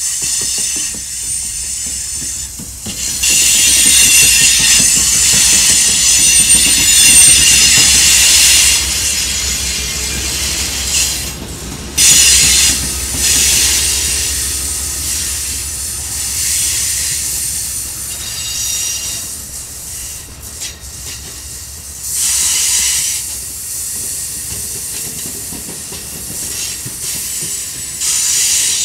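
A passenger train passing at close range: two GE P42DC diesel locomotives rumble by first, then bilevel Superliner cars. The wheels squeal and hiss on the curve throughout, loudest for several seconds early on and then flaring again in shorter bursts.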